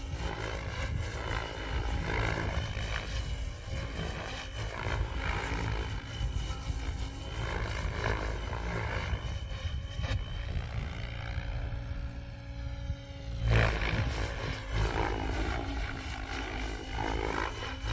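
Goosky RS7 electric RC helicopter in flight: its rotor and motor whine rises and falls in pitch as it manoeuvres through flips and pirouettes, with a low steady rumble underneath and a brief louder surge about three quarters of the way through.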